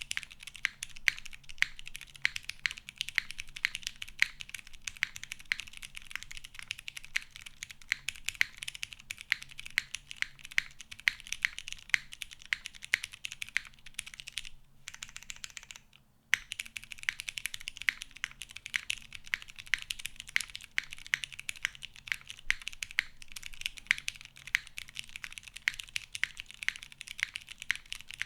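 Steady fast typing on a custom mechanical keyboard with lubed vintage Cherry MX Clear tactile switches on an FR4 plate, tray-mounted on leaf springs with no foam, under GMK keycaps: a dense run of crisp key clacks. The typing pauses briefly about halfway through, then resumes.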